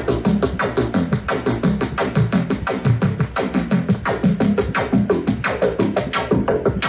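Make Noise 0-Coast semi-modular synthesizer playing a fast arpeggiated pattern of short, plucky notes, about seven or eight a second, driven by a MIDI arpeggiator.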